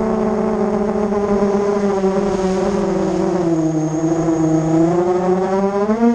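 Racing quadcopter's brushless motors and propellers whining in flight, heard from the onboard camera; the pitch sinks in the middle and climbs again near the end as the motor speed changes.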